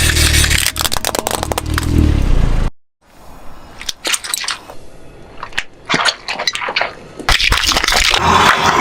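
Brittle things being crushed: dense crunching and cracking over a low rumble, cut off suddenly about three seconds in, then scattered quieter cracks, and loud dense crackling again from about seven seconds.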